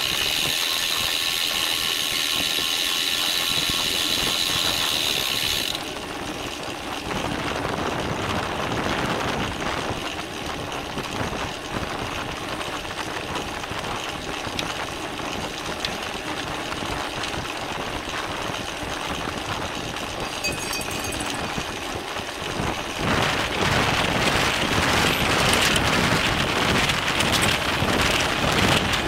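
Bicycle freehub ticking rapidly while the rider coasts, stopping about six seconds in as pedalling resumes. Then steady wind and tyre noise on a bike-mounted camera's microphone, growing louder after about twenty-three seconds.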